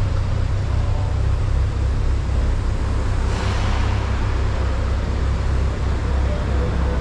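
Steady low rumble of car engines running, with a brief swell of hiss a little before halfway.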